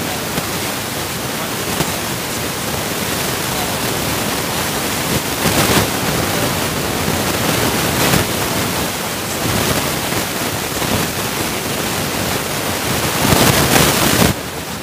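Loud, steady hiss of recording noise, like the static of a clip-on microphone. It swells near the end, then drops off sharply.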